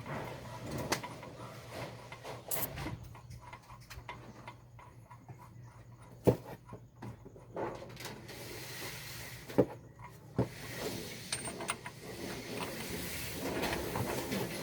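Scattered clinks and knocks of hand tools and metal parts being handled, with three sharper knocks about six, nine and a half and ten seconds in.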